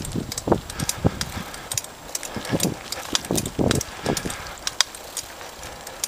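Bicycle rattling and clicking over a rough, patched paved path on an uphill ride, with many sharp irregular knocks and ticks and uneven low bursts mixed in.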